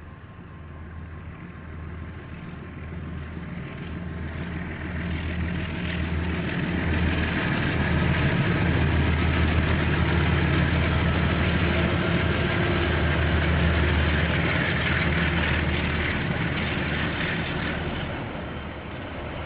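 KiwiRail diesel locomotive engine running under load, its low note growing louder as it approaches, staying loud for several seconds in the middle, then easing off near the end. Heard through a security camera's microphone.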